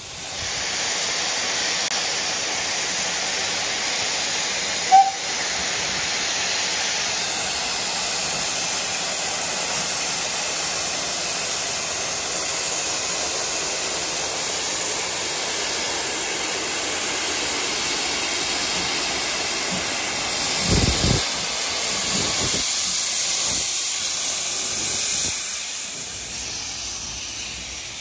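Steam locomotive letting off steam: a loud, steady hiss that starts suddenly and fades out near the end. A sharp click comes about five seconds in, and a few low bumps come late on.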